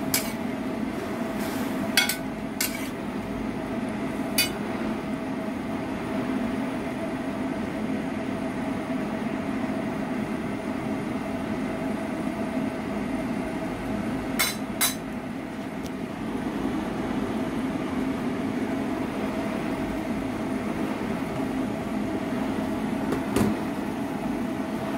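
A metal spoon clinks sharply against a stainless steel wok a handful of times, twice in quick succession about halfway through, while broccoli blanches in simmering water. A steady hum runs underneath.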